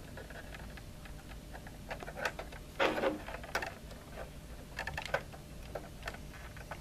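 Small scattered clicks and rustles of fingers handling wire ends and the plastic screw-terminal block of an irrigation controller as the wires are pushed into the terminals, with a couple of sharper clicks near the middle.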